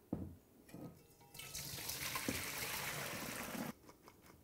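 Hot blanching water and shredded cabbage poured from a large bowl into a metal colander in the sink: a rush of splashing water lasting about two seconds that cuts off suddenly, after a couple of light knocks near the start.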